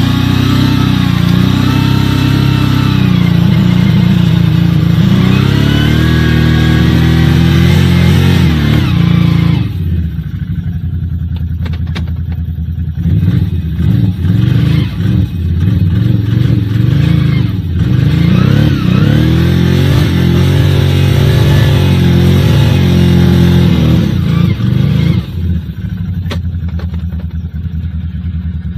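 Can-Am Outlander 570 ATV's V-twin engine revving hard again and again, its pitch rising and falling as the bogged-down quad tries to power out of soft peat. The revs ease about ten seconds in, come back in shorter choppy bursts with some knocks, then climb again.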